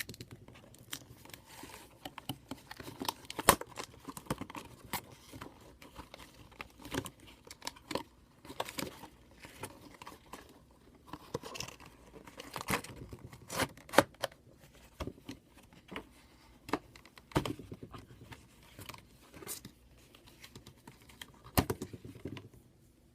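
Packaging being handled and opened by hand: irregular clicks, taps and knocks, with crinkling and tearing of the wrapping.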